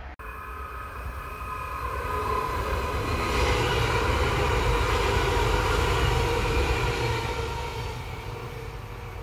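A DB class 442 Talent 2 electric multiple unit passing at speed: an electric whine of several steady tones over the rumble of wheels on rail, building to its loudest in the middle as it goes by and fading as it moves away.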